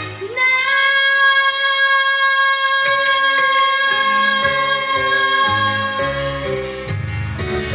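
Music: a female singer holds one long high note over the backing accompaniment, whose lower notes change underneath it. The held note scoops up into pitch at the start and ends about six and a half seconds in.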